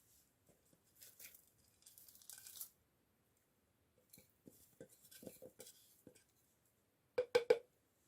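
Kitchen handling sounds as ingredients go into a mixing bowl: a short rustling scrape, a run of light taps, then a quick cluster of sharp knocks near the end, the loudest part.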